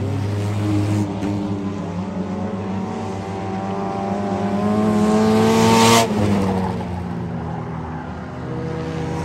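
Dirt-track race car engines running under racing power, one car passing close along the fence about six seconds in: its engine note climbs and grows loud, then drops sharply as it goes by.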